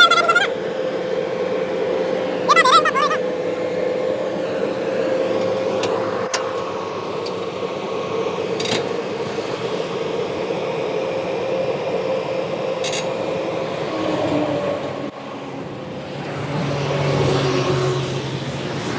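Excavator's diesel engine running steadily, with a few sharp clanks and a brief high warbling sound about two and a half seconds in.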